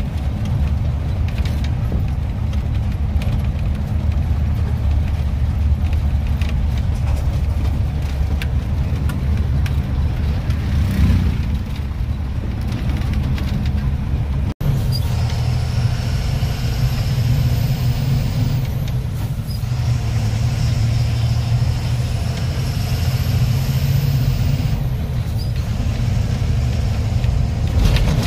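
Engine drone and road noise heard inside the cab of a moving truck. About halfway through, the sound cuts out for an instant and comes back with a steady high whine and two faint rising whistles over the engine.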